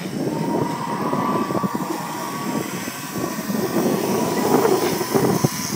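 Electric RC helicopter (Tarot 450 Pro) running, a faint steady whine under heavy, rough wind buffeting on the microphone.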